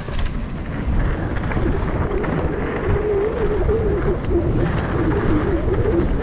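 Wind rushing over the on-bike camera's microphone and knobby tyres rolling and rattling over a hard-packed dirt trail as a Santa Cruz V10 downhill mountain bike descends at speed, with a wavering hum through the middle.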